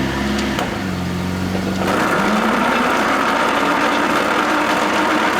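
Toyota Land Cruiser transfer case grinding and whirring, coffee-grinder-like, once the truck is put in gear over the engine's idle. The grinding sets in about two seconds in, with a whine that rises a little in pitch. It is the sign of a transfer case run dry of oil, its internals badly damaged.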